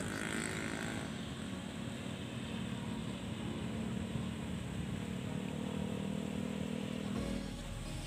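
Homemade RC seaplane's twin 2200kv electric motors and propellers droning steadily in flight overhead. The drone drops away shortly before the end.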